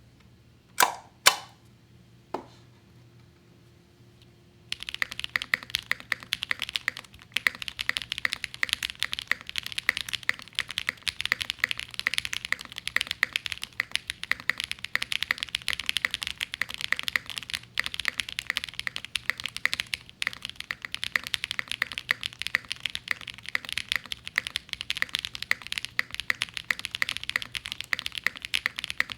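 IQUNIX Zonex75 mechanical keyboard with stock Gateron Summertime switches, GMK keycaps and an FR4 plate: three separate loud key clacks, then fast continuous typing that starts about five seconds in and keeps up a steady clatter of keystrokes.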